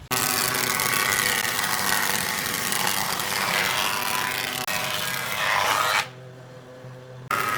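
A power tool working wood, running steadily for about six seconds. It stops for a moment near the end, then starts again.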